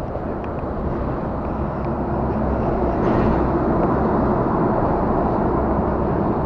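Heavy traffic, lorries, rumbling across the bridge overhead. The low rumble swells to a peak about three seconds in, then eases off slightly.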